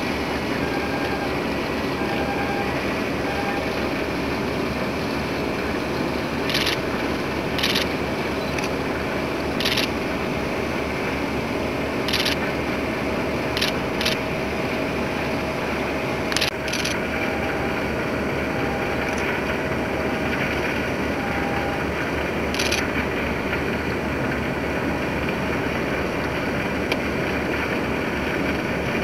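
A steady mechanical hum under a constant rush of noise, broken a few times by brief louder gusts of noise.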